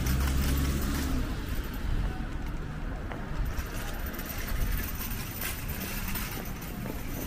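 A motor vehicle's engine running with a low hum that fades out about a second and a half in, leaving general city street noise.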